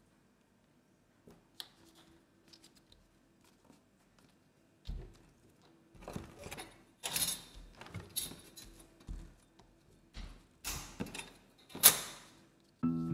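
A4 printer paper being handled and folded: a series of short crinkling rustles and creases, sparse at first and then more frequent, the loudest about twelve seconds in.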